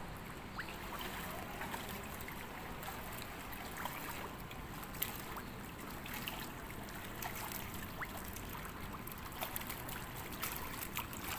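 Pool water splashing and lapping as a swimmer does breaststroke, with many small scattered splashes over a steady soft wash of water.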